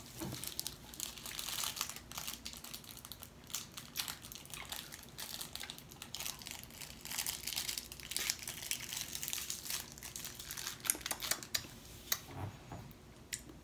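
Plastic twist wrapper of a hard candy crinkling as it is unwrapped by hand, in many short, irregular crackles that die away near the end.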